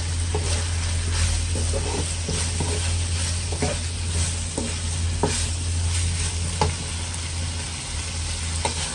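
Cabbage, bell pepper and chicken sizzling in a nonstick wok while being stir-fried with a wooden spatula, with scattered knocks of the spatula against the pan every second or two, over a steady low hum.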